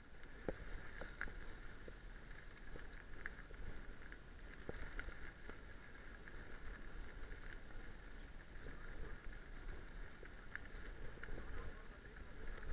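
Mountain bike riding over a gravel and leaf-strewn forest track, heard from a camera mounted on the bike: steady tyre and drivetrain noise with scattered sharp knocks and rattles from the bike, and a low rumble of wind on the microphone.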